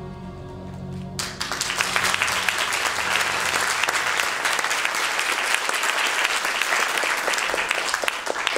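The last held chord of the music sounds, then audience applause breaks out about a second in and continues steadily as dense clapping.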